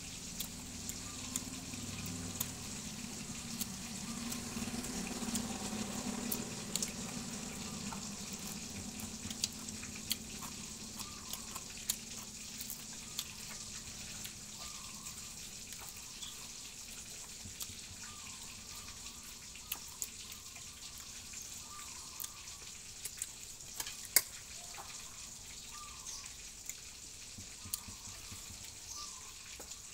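Eating noises of a man chewing food and pulling grilled fish apart by hand: scattered sharp clicks and smacks over a steady faint hiss.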